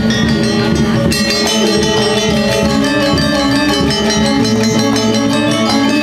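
Balinese gamelan gong kebyar playing: bronze metallophones ringing a dense run of quick notes over steady low tones, with drums. The bright high notes grow stronger about a second in.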